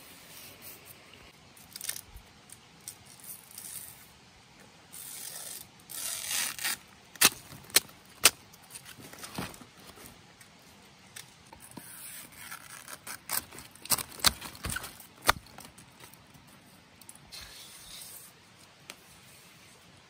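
Fibrous strips being torn and peeled from cut plant stalks: several rasping tears, with sharp loud snaps in between.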